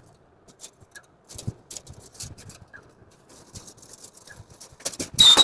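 Stainless steel dish rack parts being handled and fitted: scattered light clicks and taps of metal, with a louder clatter near the end.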